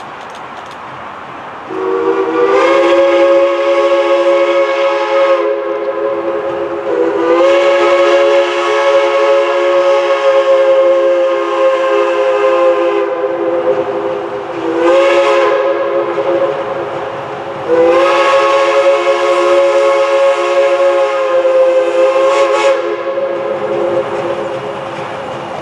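Steam locomotive's chime whistle blowing a chord of several notes in four blasts, long, long, short, long: the grade-crossing signal. Each blast slides up slightly in pitch as it opens, over the low running noise of the approaching train.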